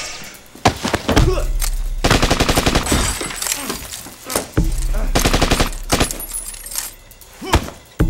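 Re-recorded foley and sound effects: a string of sharp, hard hits, with runs of rapid rattling strikes in between and a steady low hum beneath.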